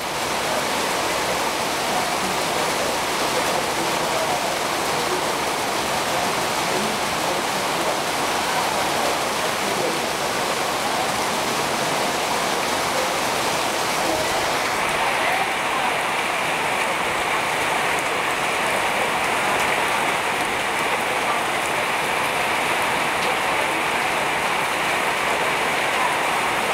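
Heavy monsoon rain pouring steadily onto a paved path and splashing off the wet surface. About fifteen seconds in, the sound turns a little duller as its highest hiss drops away.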